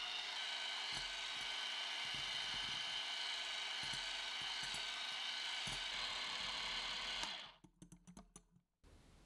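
Electric hand mixer running at a steady whine, its beaters whipping egg whites and sugar into meringue in a glass bowl. It is switched off a little over seven seconds in, leaving a few faint clicks as the meringue reaches stiff peaks.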